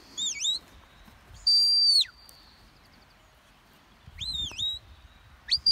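A handler's high whistle commands to a working sheepdog: a short dipping double note, a long steady note that drops off at its end, then a swooping up-and-down note, with another long note starting near the end.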